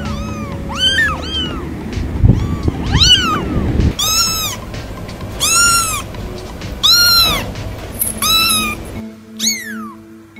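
Kittens mewing over and over: a dozen or so short, high-pitched meows, each rising then falling in pitch.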